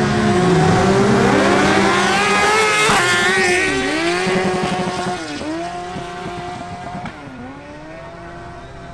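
Two litre-class inline-four sport bikes, a Suzuki GSX-R1000 and a Yamaha FZ1, launching hard off a drag-strip start line at full throttle. The engine note climbs and drops back at each of several quick upshifts, then fades as the bikes pull away down the quarter mile.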